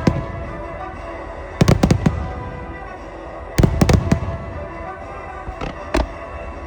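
Aerial fireworks bursting: quick clusters of sharp bangs about two and four seconds in, with single bangs near the start and about six seconds in. Music plays underneath.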